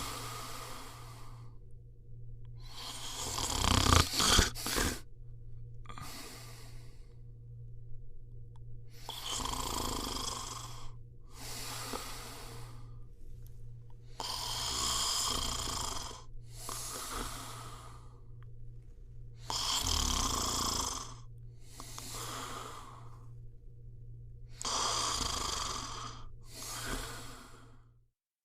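A person snoring: a run of breathy snores, in and out, every second or two, with the loudest and harshest snore about four seconds in, broken by a few sharp clicks. A steady low hum runs underneath.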